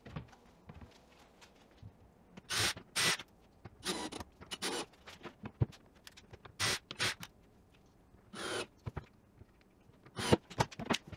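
Short scrapes, clicks and rustles at irregular intervals, a few per second at most: hands working a cabinet door and its hinges into place.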